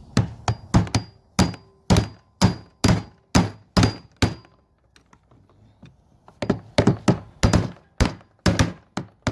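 Repeated hammer blows on a bar knocking a fuel pump's lock ring round on the fuel tank to lock it in place, about two sharp, ringing strikes a second, with a pause of about two seconds midway before the strikes start again.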